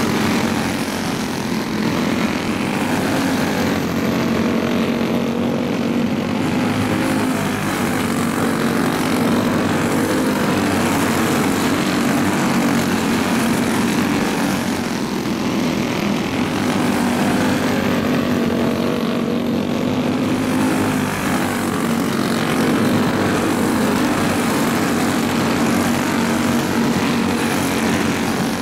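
Small dirt-track race-car engines running flat out as a pack laps the oval, a continuous buzzing drone that swells and eases slightly every several seconds as cars pass.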